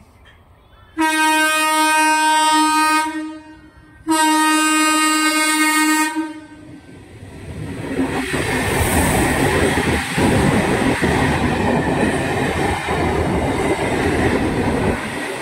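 Indian Railways electric multiple unit (EMU) local train sounding two long horn blasts, then running close past with the steady rush and clatter of its wheels on the rails.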